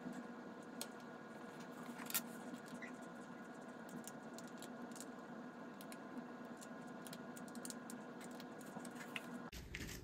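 Scattered faint clicks and light scrapes of a small metal repair tool working among a tablet's internal parts, over a steady hum that cuts off suddenly near the end.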